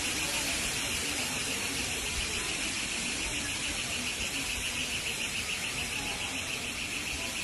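A high-pitched electronic alarm pulsing rapidly at an even rate, several pulses a second, over street noise.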